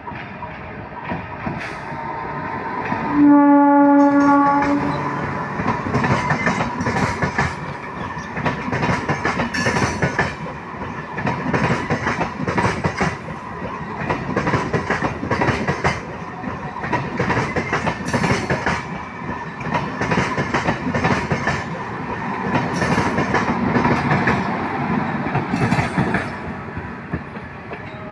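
A train sounds one horn blast of about a second and a half, about three seconds in, then passes close by with continuous rumbling and steady wheel clatter over the rail joints, easing off near the end.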